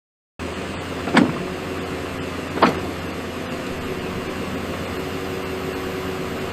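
An engine running steadily, with two short, louder sounds about a second in and again about a second and a half later.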